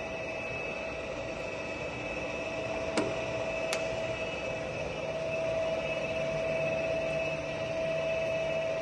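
Heavy-duty lathe's headstock drive running with a steady hum and whine. Two sharp clicks from the controls come about three seconds in, as the spindle speed is changed; from about five seconds the whine is a little louder as the spindle turns at 66 rpm.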